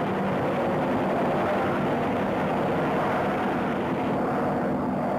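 Propeller-driven aircraft engine drone, steady and loud, with a dense roar over a constant engine pitch.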